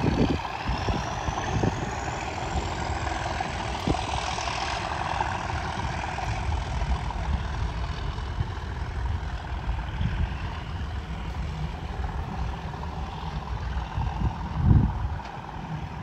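Class 37 diesel locomotive's English Electric V12 engine working under power as the train pulls away, a steady rumble with a high whine rising in pitch over the first few seconds. Wind buffets the microphone, with one loud thump near the end.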